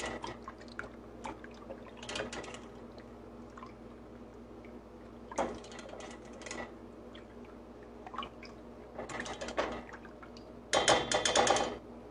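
A utensil stirring coconut milk in a metal saucepan, clinking and scraping against the pan in short spells, with a quick run of clicks near the end, over a faint steady hum.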